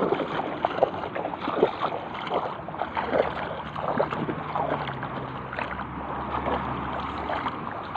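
Shallow seawater sloshing and splashing around legs wading through it, in an uneven run of small splashes. A faint low hum joins about three seconds in and fades out near the end.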